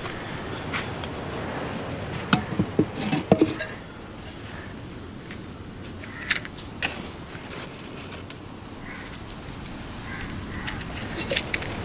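Terracotta pots and clay stoves being handled: a cluster of sharp knocks and clinks a couple of seconds in, a few single knocks later, over a steady background hiss.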